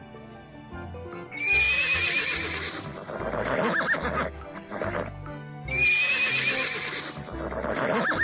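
A zebra's call, a horse-like whinny, played twice about four seconds apart over cheerful children's backing music.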